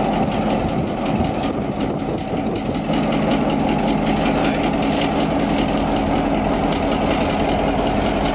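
Victorian Railways T class diesel-electric locomotive T334, its two-stroke EMD diesel engine running with a steady, even hum as the locomotive moves slowly away along the track.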